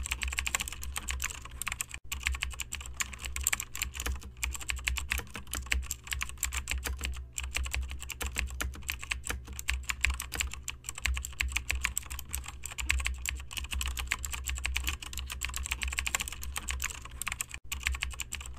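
Computer keyboard typing: a fast, dense run of key clicks as code is entered, broken by a brief pause about two seconds in and another near the end.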